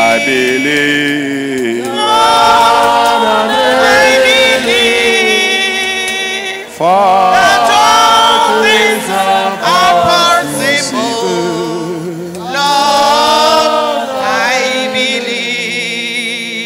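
A worship chorus sung into microphones by a man and a woman leading a church congregation, in long sung phrases of a few seconds each.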